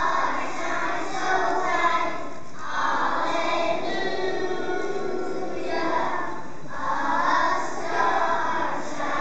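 A group of young children singing together as a choir, in phrases a few seconds long with short breaks between them.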